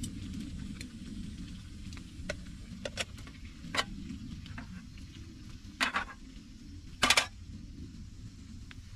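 Light clinks and scrapes of camp cookware and utensils, with four louder sharp clatters, the loudest about seven seconds in, over a low steady rumble.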